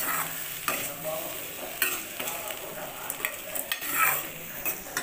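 Metal spoon stirring boiled chickpeas and onions in a hot oiled kadai, scraping the pan and knocking against it a few times over a light sizzle of frying.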